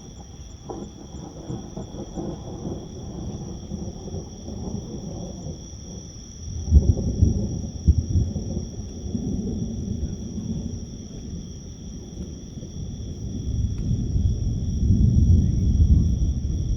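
Thunder rumbling: a roll breaks in suddenly about seven seconds in with a few loud cracks, and another long roll swells up near the end. Under it, insects trill steadily on two high notes.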